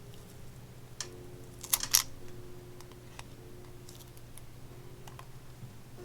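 A few light clicks and taps of small repair tools on a smartphone's internal parts, the sharpest pair about two seconds in, then fainter ticks.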